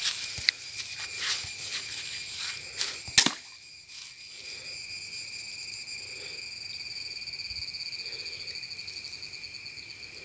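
Insects trilling steadily in a high-pitched, pulsing drone, with rustling through dry brush in the first three seconds and one sharp click about three seconds in.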